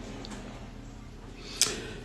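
A pause in speech: a low steady background hum, with a single short click about one and a half seconds in.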